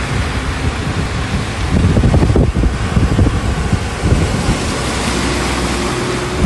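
Wind buffeting the phone's microphone over a steady rush of water and traffic on a flooded road, with a box truck driving through the floodwater close by.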